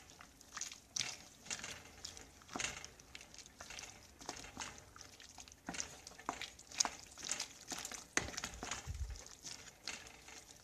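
A spoon stirring and pushing chunks of vegetables around in a stainless-steel pot: scattered, irregular soft clicks and scrapes.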